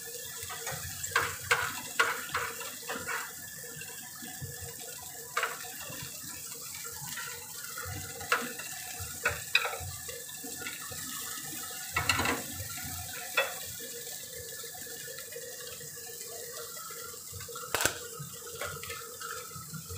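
Kitchen tongs clicking and tapping against a frying pan and a ceramic plate as cooked spinach is lifted out, a dozen or so sharp clicks scattered through, most of them in the first three seconds. Under them runs a steady hiss with a faint hum.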